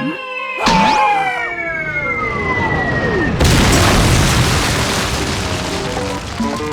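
Cartoon sound effects: a falling, descending whistle lasting a couple of seconds, then a sudden loud boom that slowly dies away. Short music notes come back in near the end.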